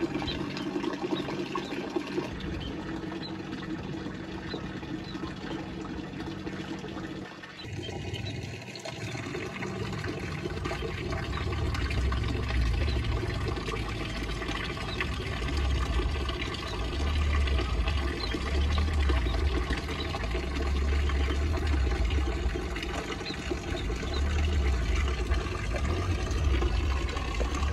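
A thin stream of water pouring into a small pool, splashing steadily, with a low rumble through it. For the first few seconds, before this, a steady low hum.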